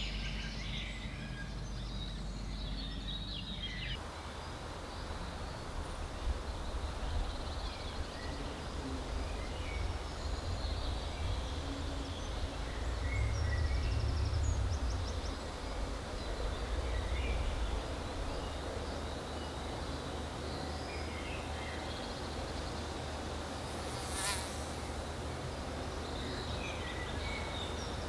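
Outdoor ambience of a derelict site: a steady low rumble like wind, with a fly buzzing and scattered faint high chirps. A single sharp click comes about 24 seconds in.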